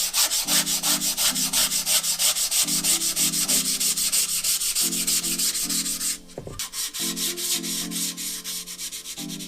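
Sandpaper rubbed back and forth over primer on metal parts, brisk strokes about four to five a second. The strokes stop briefly a little past six seconds in and resume softer.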